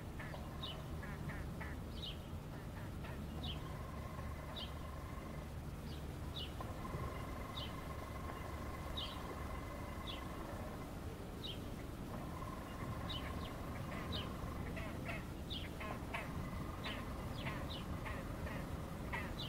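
Waterbirds calling, short sharp calls repeated about once or twice a second and coming faster near the end. Under them runs a steady low rumble of urban harbour noise, with a steady machine tone that starts and stops several times.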